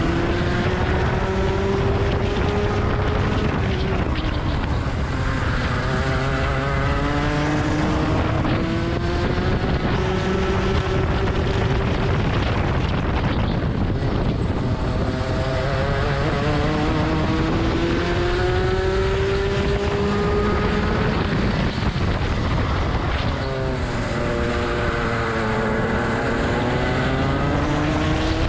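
Rotax 125cc two-stroke kart engine heard from on board at racing speed, its pitch climbing over several seconds along the straights and falling as the kart slows for the corners, about four times. Wind rushes over the microphone underneath.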